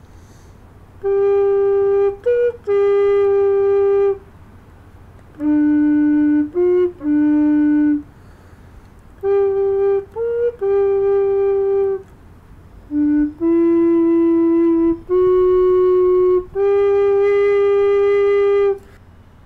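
Recorder playing a slow little melody solo: four short phrases of long held notes, each with a quick passing note, with brief pauses between the phrases.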